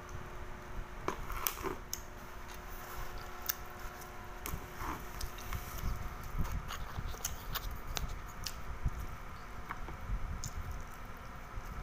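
A person chewing food with the mouth closed, close to the microphone: soft wet smacks and many sharp little mouth clicks scattered throughout.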